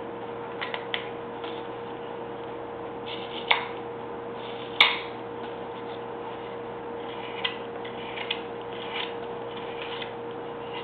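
A carving knife slicing chips off a wooden dog figure's leg: irregular, sharp little clicks and snaps as each cut pops wood free, the two loudest about halfway through. A steady hum runs underneath.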